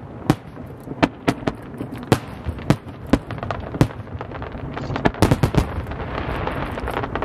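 Fireworks display: sharp shell bursts at irregular intervals, with a quick cluster of bangs about five seconds in, then a denser, rising wash of overlapping crackle and rumble toward the end.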